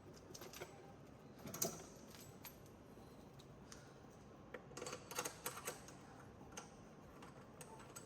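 Faint, scattered clicks and taps of high-pressure hose fittings being handled and fitted onto the ventilator's gas ports, with a small cluster of clicks about halfway through.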